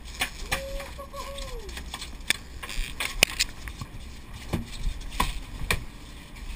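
Irregular sharp knocks and slaps on the boat deck as a landed wahoo thrashes and is handled, over a low steady rumble, with a short drawn-out voice about half a second in.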